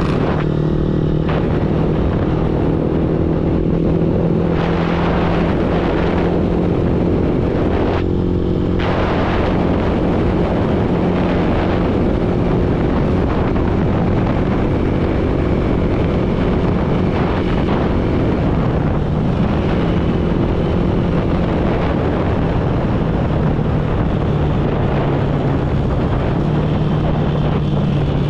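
Motorbike engine running steadily at cruising speed, its pitch shifting slightly a few times, under a steady rush of wind and road noise.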